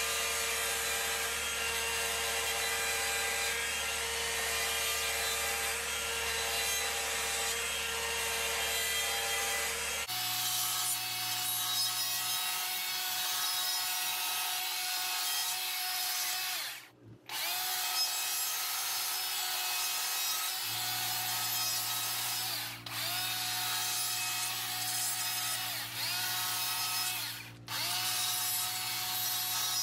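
Electric die grinder with a coarse burr whining steadily as it carves wood. The pitch steps up about a third of the way through, and near the end it cuts out briefly a few times, spinning back up each time.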